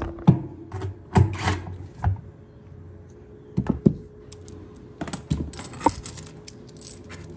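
Irregular metal clinks and knocks, several sharp ones and a run of small jingling clicks near the end, from handling loose bolts, tools and parts of a washer-dryer being taken apart.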